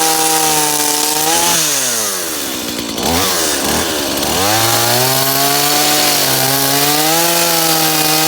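Chainsaw run at high throttle with a bar-mounted carbide grinding head sharpening the chain. The engine note falls away about 1.5 s in, blips briefly twice, then rises back about 4.5 s in and holds high.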